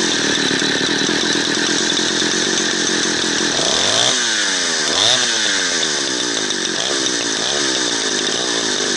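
Two-stroke chainsaw engine running on choke with the throttle trigger latched at fast idle, just after a cold start. Its speed sags and picks up again several times around the middle, so it runs unevenly.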